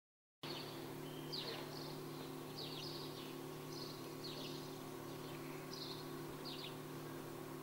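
Faint outdoor ambience of small birds chirping: repeated short, falling calls over a steady low hum, starting about half a second in.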